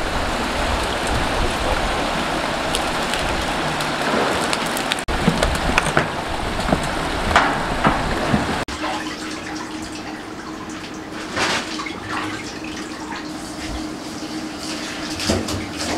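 Water running, with a few short knocks and scrapes. From about nine seconds in, a tap runs into a stainless-steel sink as trout are gutted and rinsed under it, over a low steady hum.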